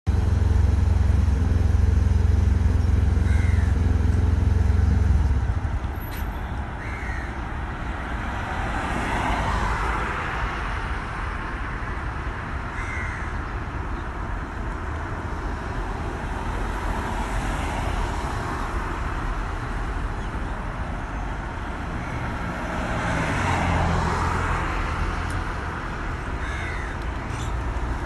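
Birds calling outdoors, a few brief calls spaced several seconds apart, over steady traffic noise. A low vehicle rumble is loudest for the first five seconds and swells again a little after 20 seconds.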